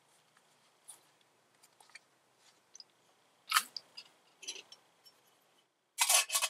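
Faint clicks and knocks of camp gear being handled, with a sharp knock about three and a half seconds in, then a short, loud metallic clatter near the end as a lid is set on a metal canteen cup of water for tea.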